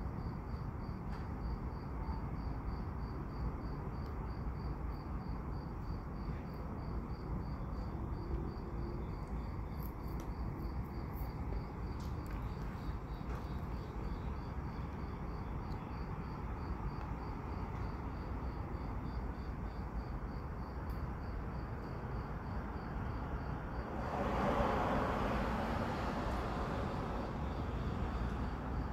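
Crickets chirping in a steady, high, pulsing rhythm over a constant low rumble. A louder surge of noise rises for a few seconds near the end.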